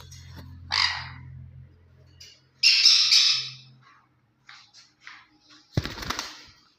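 Ring-necked parakeet squawking: harsh calls about a second in and again near the three-second mark, a run of short calls after that, and a loud harsh burst near the end.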